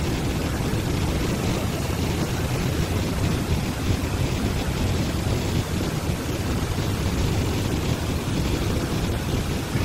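Steady rushing of a river's rapids and waterfall, a constant, deep, even roar of water with no breaks.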